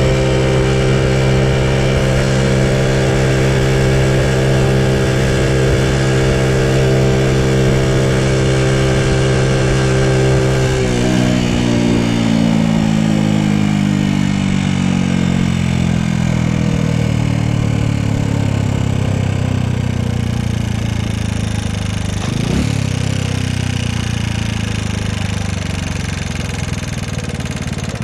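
Honda Super Cub's single-cylinder four-stroke engine running at a steady speed on the road, then winding down slowly in pitch as the bike slows from about eleven seconds in, with one short blip of revs near 22 seconds.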